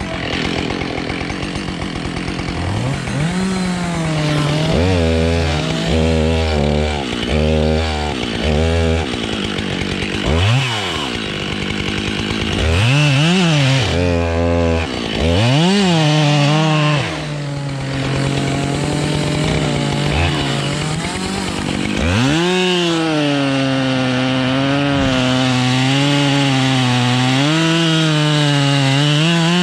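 Husqvarna 572 XPG two-stroke chainsaw idling, then revved in a series of short bursts and cutting into beech, with a long cut in the second half where the engine note sags and wavers under load. The saw is new and not yet run in, which the owner says makes it sound a little different.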